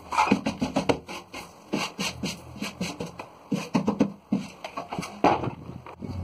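A hand rubbing along the edge of a drywall corner shelf, making quick, irregular rasping strokes.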